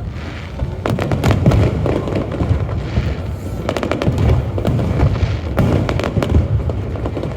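Fireworks going off in rapid volleys: many sharp bangs and crackles over a low rumble, thickening about a second in.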